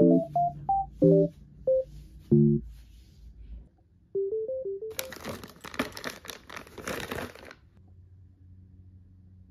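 The last notes of a piano-like backing tune, then a quick run of short beeping notes. About five seconds in comes some two and a half seconds of rustling with light clicks: fabric scraps and plastic thread spools being handled in a plastic craft box.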